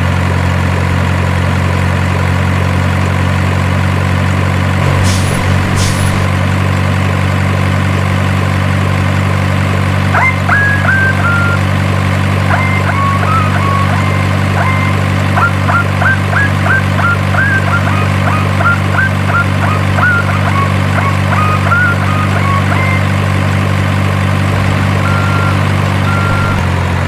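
Model truck's sound module playing a steady diesel engine idle, with two short air-brake hisses about five seconds in. From about ten seconds there is a run of short high chirps, and evenly spaced reversing beeps near the end, just before the engine sound cuts off.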